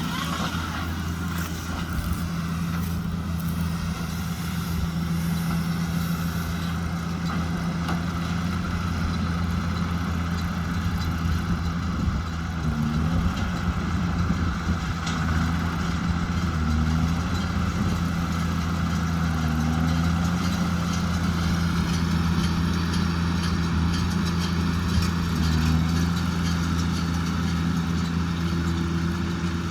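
Tractor engine of a JCB Fastrac 2170 running steadily while driving a Fusion 2 integrated baler-wrapper, its pitch briefly rising and dropping back a few times as the load changes.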